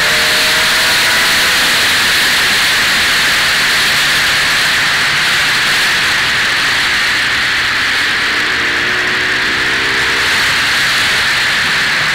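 Motorcycle at road speed, heard mostly as loud, steady wind rush on the onboard camera's microphone, with the engine's note showing through faintly near the start and again about two-thirds of the way in.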